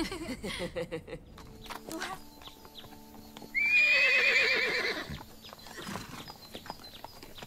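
A horse whinnying once, about three and a half seconds in: a high, quavering call over a second long that then drops away in pitch. Short scattered clicks like hoof clops come before and after it.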